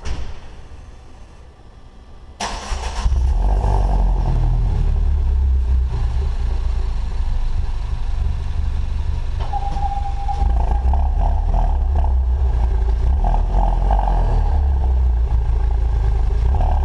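Citroën DS3 engine starting about two seconds in and settling at once into a steady idle with a low exhaust rumble, heard through an otherwise stock exhaust with its intermediate (centre) silencer removed.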